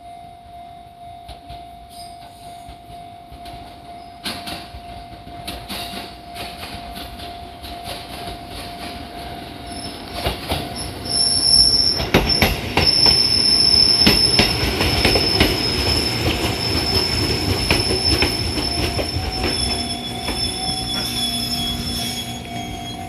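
Fujikyu 6000-series electric train, a converted 205-series commuter EMU, approaching and running past, with wheels clacking over rail joints and a high, steady wheel and brake squeal as it slows into the station. It is loudest about halfway through. The steady tone of a level crossing alarm is heard at the start and again near the end.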